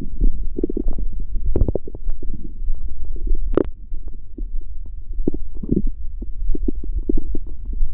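Human stomach growling and gurgling: a run of short, irregular gurgles over a steady low rumble, with one sharper crackle about three and a half seconds in.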